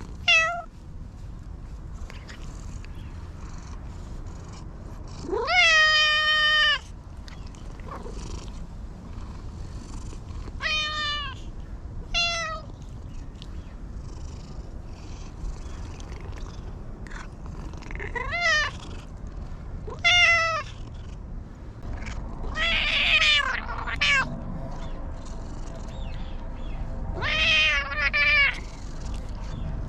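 A stray cat meowing again and again, around nine meows of different lengths. One long drawn-out meow that rises at its start comes about five seconds in, and rougher, fuller meows come near the end.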